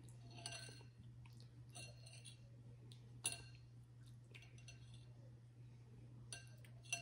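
Faint, scattered clicks and clinks of someone eating a seafood boil, handling food and tableware. The sharpest click comes about three seconds in, and a couple more come near the end, over a steady low hum.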